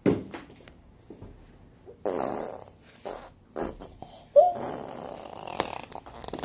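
A baby's sounds: a breathy, spluttering burst, then a short squeal that rises and falls and trails into more breathy noise, with several sharp clacks of hard plastic toys being knocked and waved.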